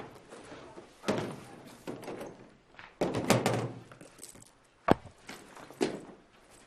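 Suitcases being handled: a series of dull thuds and knocks as luggage is moved and set down, the loudest cluster about three seconds in, then a sharp click about five seconds in and one more knock.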